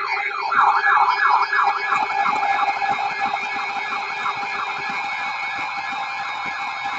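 Electronic sirens in a fast yelp, several sweeping up and down over one another at about three to four sweeps a second, over steady electronic tones. The lowest of those tones stops about five seconds in.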